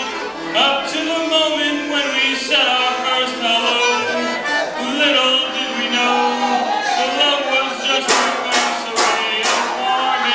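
Piano accordion playing a tune. Near the end, four sharp hits sound about half a second apart over the playing.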